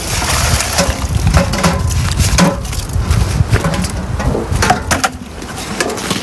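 Ice in a metal sap bucket crunching and scraping as the bucket is tipped and emptied by hand into a collecting pail. It is a rapid run of cracks and knocks, thickest in the first couple of seconds and thinning out after.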